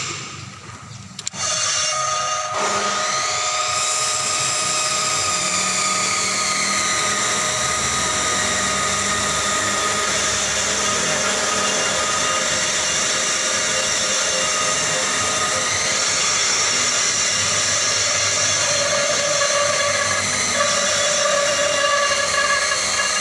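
On-car brake disc lathe starting about a second and a half in and spinning the hub and brake disc, its high whine rising as it comes up to speed and then running steadily. The lathe is turning a warped brake disc true, the cause of a pulsating brake pedal.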